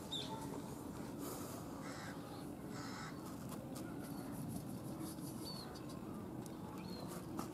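Crows cawing now and then over a steady outdoor background, with the soft hiss of dry powdered feed poured from a metal can into a plastic tub.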